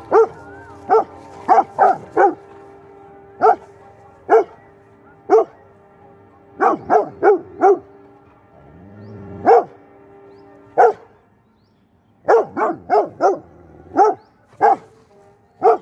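Rottweiler barking at close range, about twenty short barks, some single and some in quick runs of three or four, with a pause of about a second and a half near the end.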